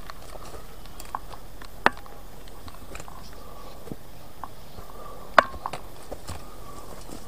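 Footsteps on a forest trail: scattered crackles and snaps of twigs and leaf litter underfoot, with two sharper snaps about two seconds in and just past five seconds.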